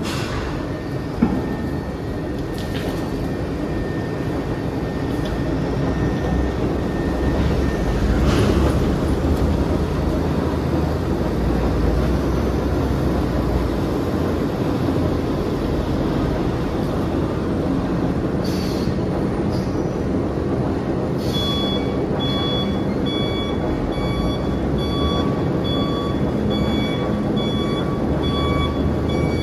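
Continuous heavy rumble of an iron-ore gyratory crusher and dump trucks working. About two-thirds of the way in, a reversing alarm starts a steady run of repeating beeps.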